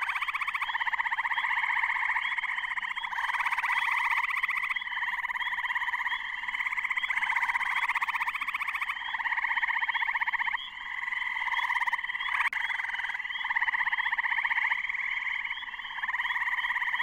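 Pond chorus of tree frogs, spring peepers among them: overlapping trilled calls a second or so long, one after another, over a steady string of short high peeps.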